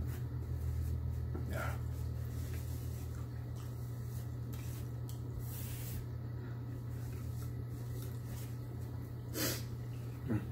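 A man sniffing and snorting a few times, the loudest near the end, his nose running from very spicy food, with a paper napkin rustling against his face. A steady low hum runs underneath.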